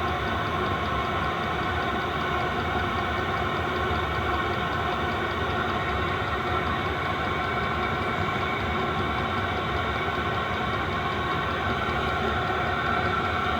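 Diesel air heater running steadily after start-up, a constant hum of combustion and blower fan with faint regular ticking, the heater now warming up.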